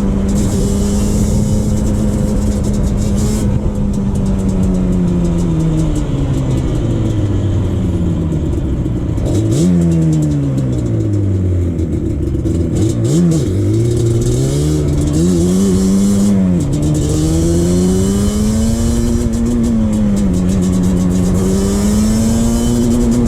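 Yamaha Banshee 350's two-stroke twin-cylinder engine running under way. It holds a steady pitch, falls off over several seconds as the throttle is let off, blips up briefly a few times, then climbs back to a steady pitch.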